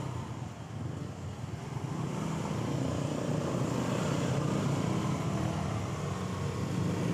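Steady low engine rumble of nearby motor traffic, growing louder about two seconds in.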